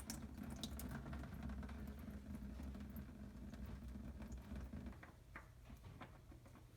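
Faint dripping and pattering of engine oil running out of a loosened oil filter into a drain pan, with scattered small ticks over a low rumble that fades about five seconds in.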